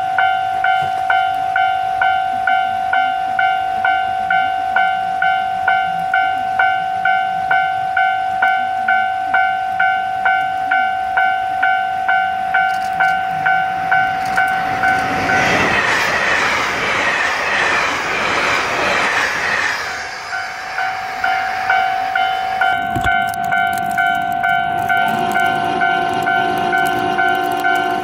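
Railway level-crossing alarm ringing in a steady pulse about twice a second. About halfway through, a JR Hokkaido 789 series electric express passes at speed; its rushing wheel and air noise drowns the bell for several seconds, and then the bell rings on.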